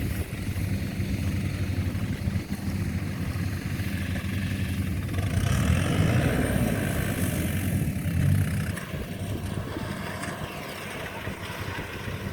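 Kubota combine harvester's diesel engine running steadily in the rice field, a low drone that grows louder for a few seconds around the middle and then falls back.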